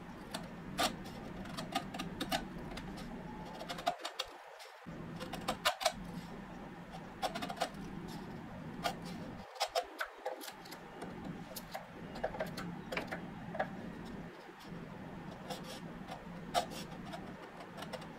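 Narrow bench chisel pushed down by hand into a dovetail socket, paring out waste: irregular small clicks and crackles as the edge shears wood fibres, over a steady low hum.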